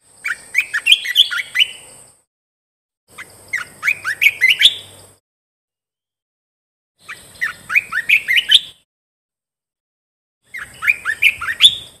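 Olive-winged bulbul singing: four short phrases a few seconds apart, each a quick run of rising notes that climbs higher toward its end.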